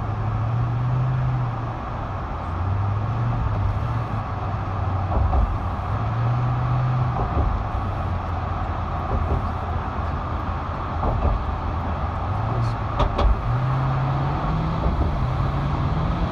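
Road noise of a car driving across a bridge, heard inside the cabin: a steady rush of tyres and wind over a low hum that shifts up and down in pitch. A few sharp clicks come about three-quarters of the way through.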